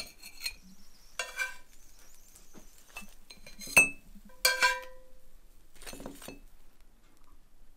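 A metal spatula clinking against ceramic plates and a cast iron skillet as fried patties are lifted out and set down. There are about five short clinks, the loudest a little before the middle, and one just after it leaves a brief ringing tone.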